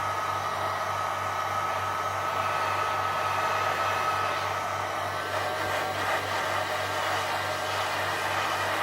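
Heat gun blowing a steady rush of hot air with a steady whine, heating a phone's back glass to soften the adhesive before prying it off.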